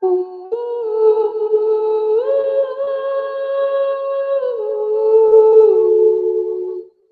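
A woman's voice humming long, wordless held notes, stepping up and then back down in pitch, and stopping shortly before the end.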